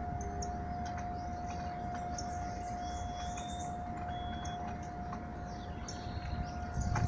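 A steady high-pitched hum holding one pitch, over a low rumble of outdoor background noise.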